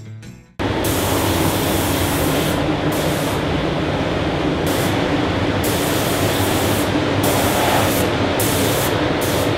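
Air spray gun hissing in repeated bursts as the trigger is pulled and released, spraying KBS RustSeal chassis coating. It runs over a steady drone of the spray booth's ventilation. The sound starts abruptly about half a second in.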